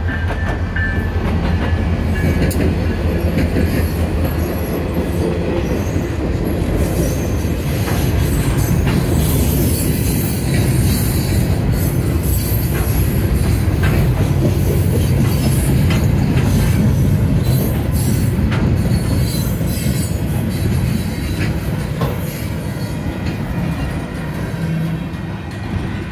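Union Pacific maintenance-of-way weed sprayer train passing close by. The diesel locomotive's engine hum comes first, then the steady rumble of the cars' steel wheels on the rails, with repeated sharp clicks as they cross rail joints.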